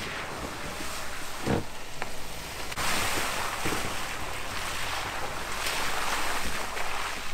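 Lifted Volkswagen Beetle driving through muddy puddles, its off-road tyres splashing and throwing water and mud; the splashing gets louder from about three seconds in as the car passes close by.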